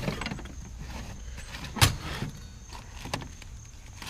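Small metal parts clicking and rattling as they are handled and sorted, with a sharp knock a little under two seconds in and lighter clicks around it.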